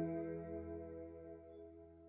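Soft ambient background music of sustained, held tones, fading out steadily.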